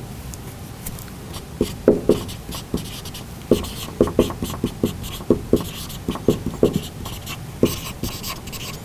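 Dry-erase marker writing on a whiteboard: short, irregular, squeaky strokes as the letters are drawn, starting about a second and a half in.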